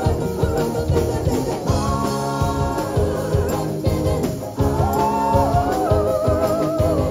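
Live rock band playing: a woman's lead vocal with held, wavering notes over electric guitars and drums, as heard from the audience.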